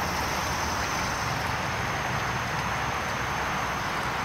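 Water running from a garden hose into a dog's water bowl as it is refilled: a steady hiss that holds even throughout.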